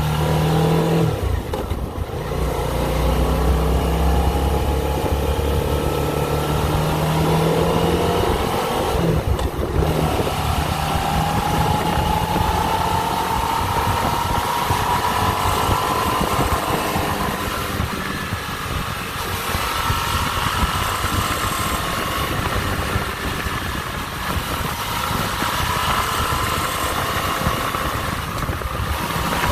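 Suzuki V-Strom 650's 645 cc V-twin engine pulling a motorcycle through the gears at speed, with wind noise. The engine pitch drops at gear changes about 2 and 10 seconds in, then climbs slowly. This is the riding condition in which a metallic rattle of unknown cause appears, around 6,000 rpm near 51 mph.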